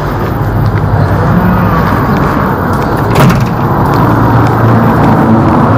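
Steady low rumble of car traffic on a city street, with one sharp click about three seconds in.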